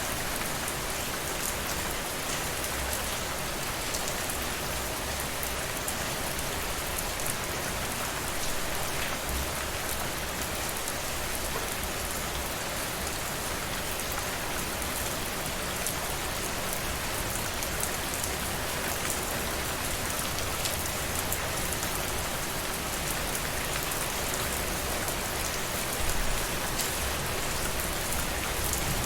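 Steady rain falling and pattering on a surface, with many fine drop ticks. A brief low rumble comes in near the end.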